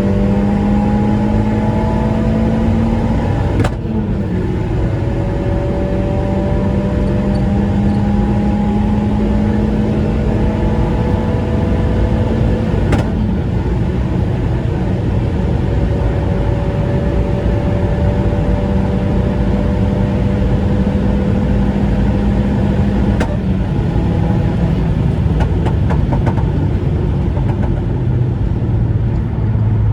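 Seat Leon's 1.8-litre turbocharged four-cylinder (1.8T 20V) engine pulling under way, its pitch climbing slowly. It breaks off with a short sharp sound and drops in pitch three times, about 4, 13 and 23 seconds in, as gears are changed, over steady road noise.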